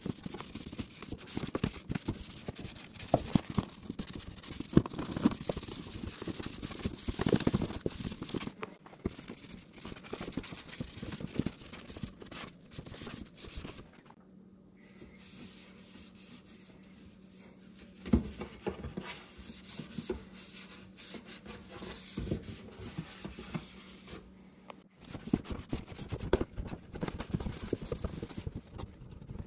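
Hand scrubbing and rubbing on coffee-machine parts being cleaned: irregular scraping strokes with small knocks, in stretches broken by short pauses. A faint low hum runs through the middle stretch.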